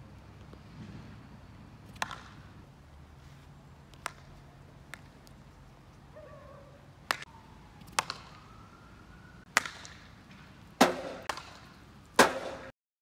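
Field hockey stick striking a hard hockey ball on artificial turf: a series of sharp cracks a second or two apart. The loudest two come near the end, each with a short ringing after it.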